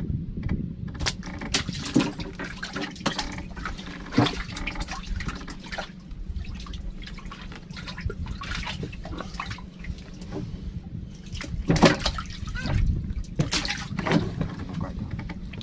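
Water splashing and dripping at the side of a small wooden boat as a fishing longline is pulled in by hand, with irregular sharp splashes over a steady low rumble.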